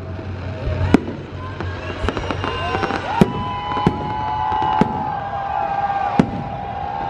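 Fireworks display: about six sharp bangs of bursting aerial shells over continuous crackle, with several long high whistling tones starting about two and a half seconds in.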